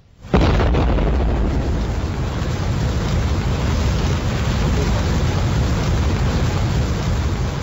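An explosion blast goes off about a third of a second in as a building bursts into flames, followed by a loud, sustained rush and rumble of the fire.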